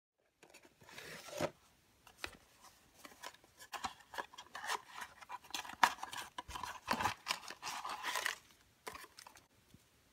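Hands opening a small cardboard box, its flaps scraping and tearing open, then rustling and crinkling as the plastic-wrapped contents are pulled out, in a quick irregular run of scrapes and crackles.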